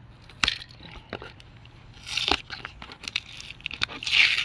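A house key slitting packing tape on a corrugated cardboard box: sharp crackly clicks as the tape and cardboard give, with a longer rasping tear about two seconds in and another near the end.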